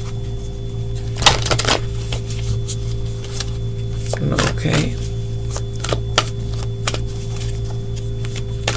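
Tarot deck being shuffled by hand, overhand, giving irregular soft slaps and sharp clicks of the cards. The loudest click comes about a second in. Under it runs a steady low hum.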